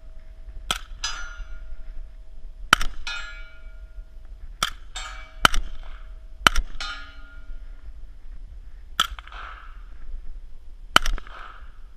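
Seven single shots from a suppressed rifle, one to two seconds apart. Most are followed a moment later by the metallic ring of a steel target being hit.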